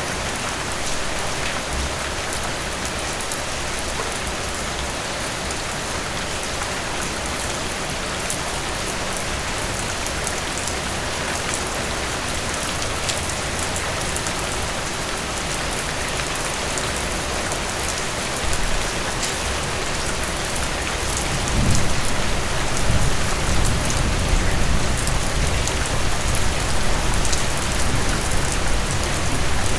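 Steady rain falling on a surface, with scattered individual drops ticking through the hiss. About two-thirds of the way in, a low rumble of thunder rises under the rain and rolls on to the end.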